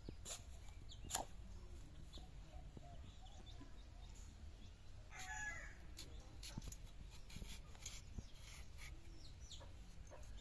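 Faint scraping and sharp clicks of a green papaya being peeled against a bonti's curved blade, the sharpest click about a second in. A chicken clucks briefly about five seconds in.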